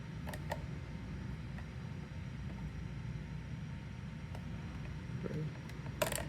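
Small clicks and handling noises of a screwdriver tightening a wire into the screw terminal of a solar charge controller, over a steady low rumble, with a sharper run of clicks near the end.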